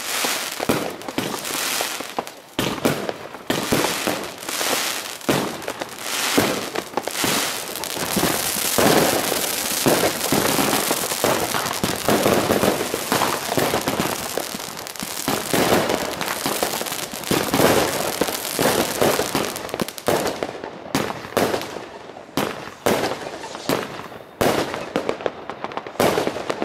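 Aerial fireworks bursting: a rapid run of bangs and crackling that becomes a dense, nearly continuous barrage in the middle, then thins out to separate bangs toward the end.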